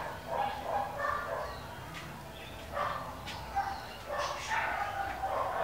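A dog barking and yipping: a string of short barks at irregular intervals.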